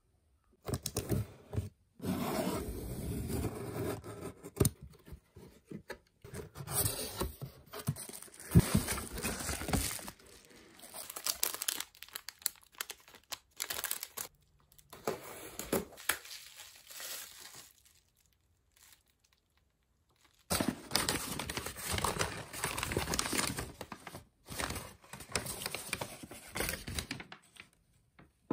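Packing paper and bubble wrap crinkling and rustling as items are unwrapped by hand, in uneven spells with a silent pause of about two seconds about two-thirds of the way through.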